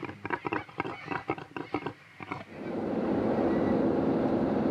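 A pig grunting in a quick, even series of short grunts, about four or five a second, which sounded like severe indigestion. About two and a half seconds in it gives way to the steady drone of engine and road noise inside a four-wheel drive's cab, travelling at speed on a sealed highway.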